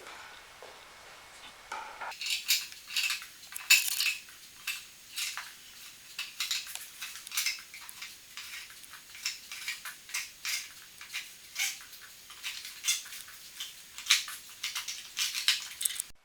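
Small hard plastic objects clicking and clattering in quick, irregular taps, starting about two seconds in.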